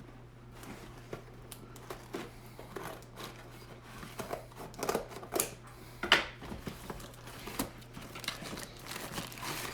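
Scissors cutting open a mail package, with irregular snips and clicks and some handling of the packaging. The strongest snips come a little past the middle.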